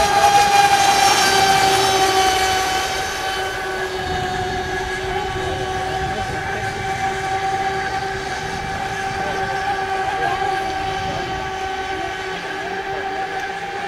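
Radio-controlled speedboat motors whining at full throttle, a steady high-pitched drone with spray hissing over the water, loudest during the first few seconds as a boat runs close by.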